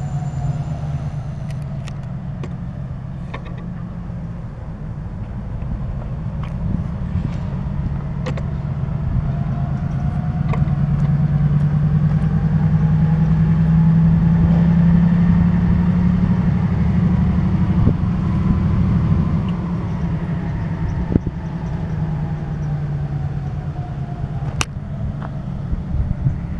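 Diesel switcher locomotive's engine running with a steady low drone as it moves slowly with a cut of freight cars. The drone grows louder toward the middle and then eases off, with a few scattered sharp clicks.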